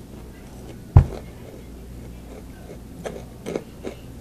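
A single loud thump about a second in, then a few short crunches of crunchy cheese snacks being bitten between about three and four seconds in.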